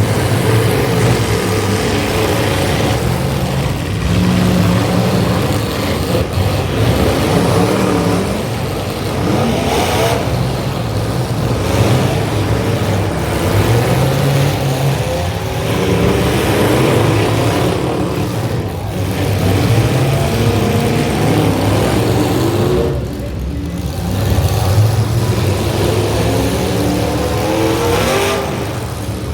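Demolition derby cars' engines revving up and down over one another, loud and continuous, with the pitch rising and falling again and again.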